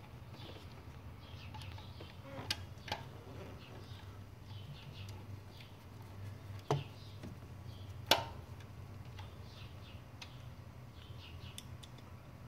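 Screwdriver on the small terminal screws of an Acura Integra's distributor-mounted ignition coil, giving four sharp metal clicks, the loudest two about seven and eight seconds in, over a steady low hum.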